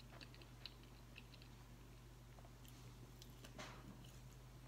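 Faint chewing of a flaky homemade apple pie turnover, with small scattered mouth clicks and a slightly louder bite about three and a half seconds in, over a low steady hum.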